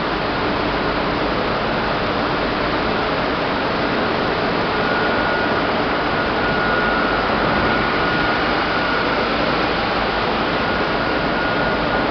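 Large centrifugal fan and its electric motor running on a pomace drying line: a loud, steady rushing noise, with a faint high whine through the middle seconds.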